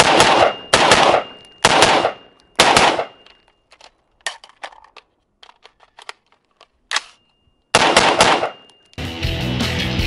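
AR-15 short-barrelled rifle fired in single shots: four loud shots under a second apart, then after a pause with a few faint clicks, two more shots. Music starts near the end.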